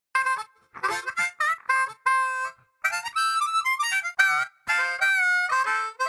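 Harmonica music in a western style: short notes with gaps at first, then longer held chords.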